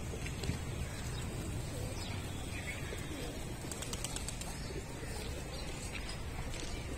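Feral pigeons cooing, with a few wing flaps around the middle, over a steady low rumble.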